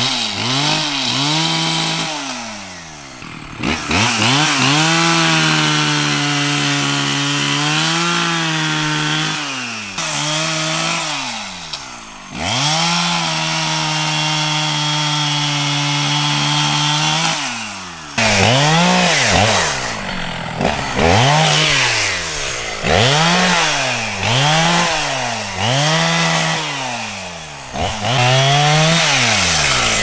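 Small two-stroke engine of a handheld power tool held at full throttle for several seconds at a time, dropping back between runs. In the second half it is revved up and down in quick blips about once a second.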